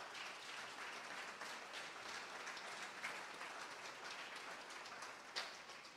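Faint applause from a congregation.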